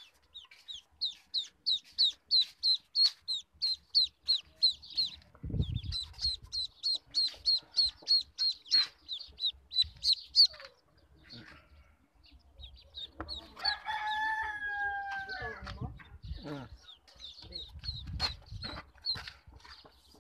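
Newly hatched ducklings peeping rapidly and shrilly, about three peeps a second, with a dull bump about five seconds in. Past the middle a longer, slightly falling call sounds for about two seconds, then the peeping resumes more sparsely.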